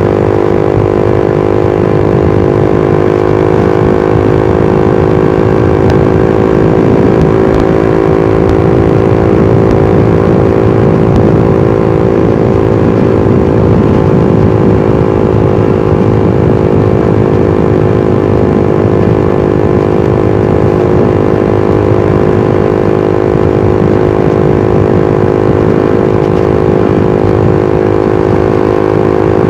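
Suzuki GSX-R150's single-cylinder engine and exhaust running at a steady cruise, the engine note holding nearly constant with only slight drifts in pitch. Rough wind and road noise sits underneath.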